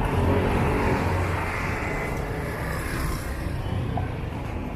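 Street noise dominated by a steady low rumble of motor vehicles going by, with an engine's pitched hum standing out in the first second or so.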